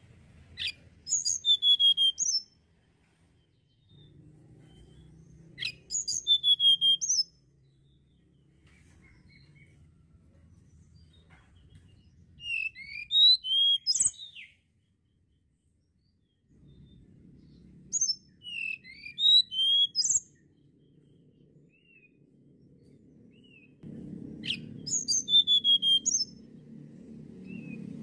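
Tledekan gunung, a blue-and-orange flycatcher, singing in short phrases of quick, high whistled notes. There are five phrases, each about one to two seconds long, a few seconds apart.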